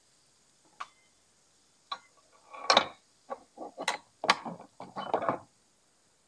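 A run of irregular clicks and light knocks, hard objects tapping together, sparse at first and then coming in quick succession, with the loudest knock about halfway through.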